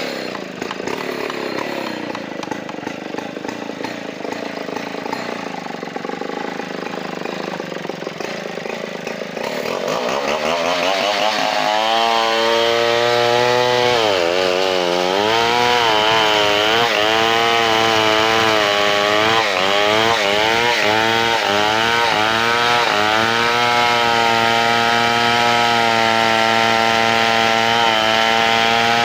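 Large two-stroke chainsaw working a big log. For about ten seconds the engine note is rough and low, then it revs up to full throttle and holds a high, steady note. Brief dips come as the chain bogs down in the wood.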